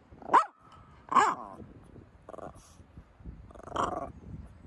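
Animal calls: four loud, pitched calls about a second apart, the first two the loudest, the second sliding down in pitch.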